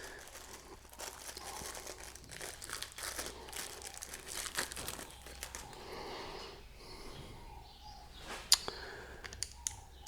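Hands handling small parts while fetching a screw and fitting it into a metal detector's arm cuff: faint rustling and light clicks, with one sharper click near the end.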